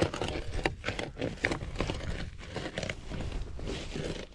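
Fillet knife slicing along a lake trout's backbone, with a run of small, irregular crackles and clicks as the blade rides over the bones, over a steady low rumble.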